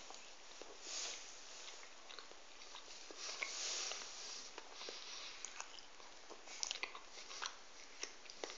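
Faint chewing of a mouthful of glazed ring doughnut, with small wet mouth clicks scattered through it.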